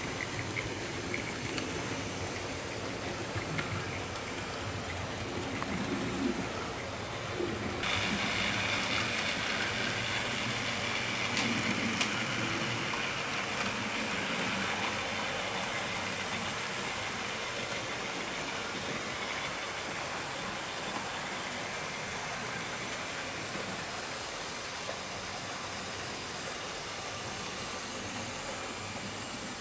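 HO scale model steam trains running on layout track: a steady rolling hiss and rumble of the wheels and locomotives. It turns brighter and a little louder about eight seconds in.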